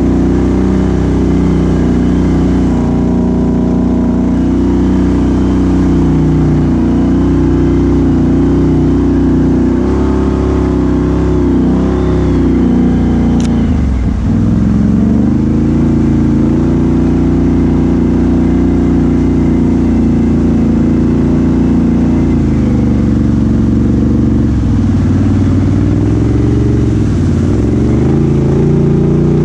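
Can-Am Outlander XMR 1000's V-twin engine, fitted with an aftermarket Big Gun exhaust, running steadily as the ATV is ridden through mud. About halfway through, the revs drop sharply and climb back, with smaller dips in engine speed near the end.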